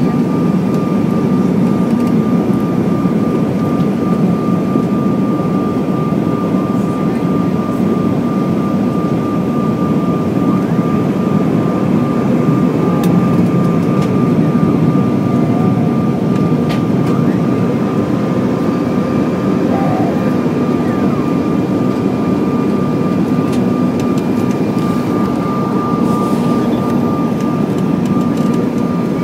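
Cabin noise inside a CRJ1000 regional jet on approach with its flaps extended: a steady roar of airflow and its rear-mounted General Electric CF34 turbofans, with a steady high whine over it.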